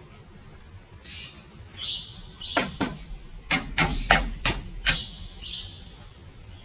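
Hand tool striking wood: about seven sharp blows in an uneven run lasting a couple of seconds, in the manner of hammering during pallet-wood construction.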